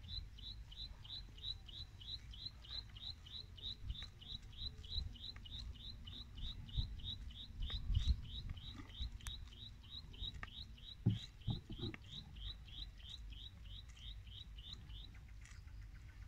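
A bird repeating one short, high chirp about three times a second, evenly, until it stops near the end. A few dull low thumps around the middle, over a low rumble.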